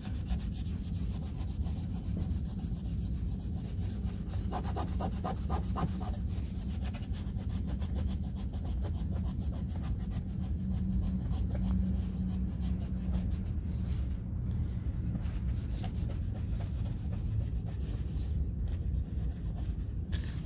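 Microfiber towel rubbing over an SUV's plastic and chrome running board, a continuous scrubbing rub of quick wiping strokes.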